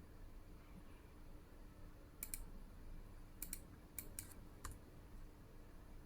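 Faint computer clicks while working through an online order page: about five sharp clicks, some in quick pairs, starting about two seconds in, over a low steady room hum.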